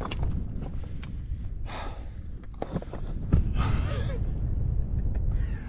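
Heavy gasping breaths of a hiker out of breath after a steep climb, two long breaths about two and four seconds in, over wind rumbling on the microphone. A short thump comes about three seconds in.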